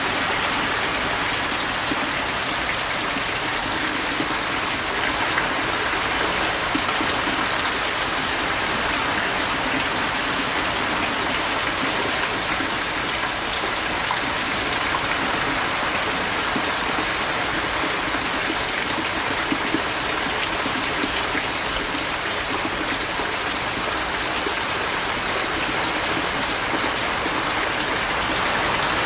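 Heavy rain falling steadily on a tin awning roof, a dense, even hiss and patter of drops.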